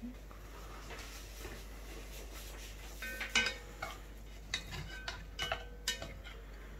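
Metal serving tongs clinking against a heavy pot and each other as spaghetti is lifted out: a quick run of sharp metallic clinks with a brief ring, starting about halfway in.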